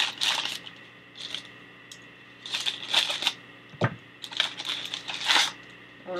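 Plastic packaging crinkling in several short bursts as it is handled, with a dull thump a little under four seconds in.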